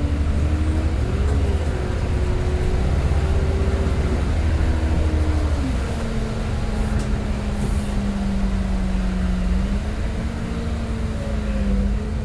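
Transbus Trident double-decker bus heard from inside the lower deck, diesel engine and ZF automatic gearbox pulling with a deep rumble and a droning note. The note rises and holds, drops to a lower steady pitch about five seconds in as the gearbox changes up, then runs steady. The uploader calls the ZF gearbox slipped.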